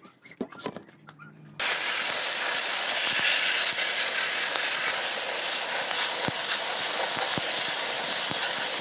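Sandblaster nozzle spraying abrasive onto a motorcycle engine cover: a loud, steady hiss that starts suddenly about one and a half seconds in, with a few faint ticks in it. Before it, faint knocks of a carburettor being handled.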